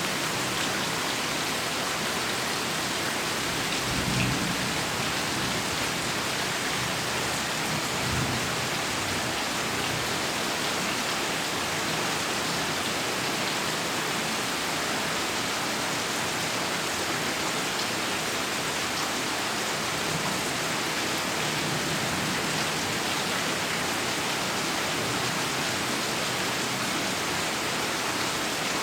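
Heavy rain falling steadily, with low thunder rumbling about four and eight seconds in and more faintly around twenty seconds in.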